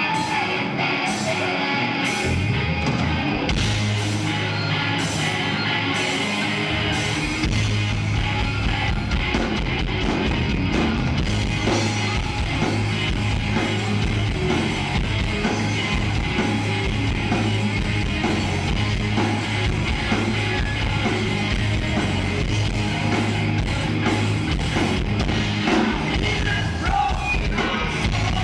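Live hard rock band playing loud through a concert PA: distorted electric guitars, bass guitar and a drum kit, with a voice singing over it. For the first seven seconds cymbals keep an even beat, about one hit every half second or so. The low bass and kick come in patchily, and from about seven seconds the full band plays steadily.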